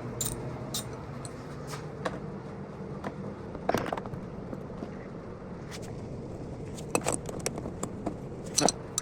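Hand tools and small metal parts clinking, tapping and scraping as they are handled, in scattered clicks with a short clatter about four seconds in and a flurry around seven seconds, over a steady low hum.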